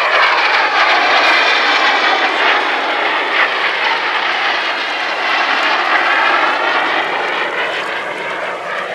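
Folland Gnat jet trainer's Bristol Siddeley Orpheus turbojet, loud and sustained as the jet flies a display pass, its tone sweeping slowly as it moves across.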